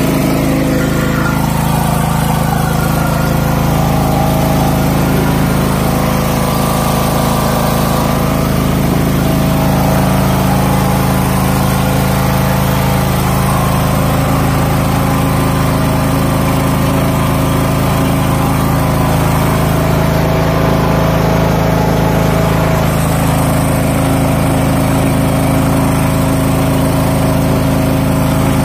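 John Deere LA115 riding lawn mower's engine running steadily.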